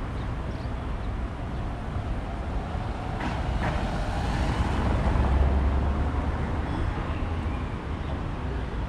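Street traffic: the steady rumble of road vehicles, with one vehicle passing close and loudest about five to six seconds in.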